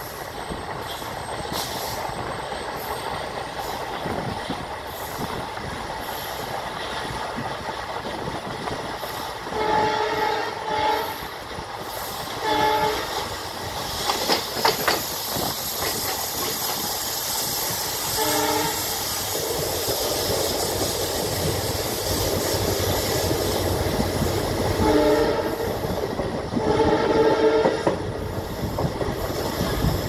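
Passenger train running, wheels rumbling and clacking over the rails, with a diesel locomotive horn sounding a series of short honks from about a third of the way in, the last one longer. The horn is the WDP-4D's.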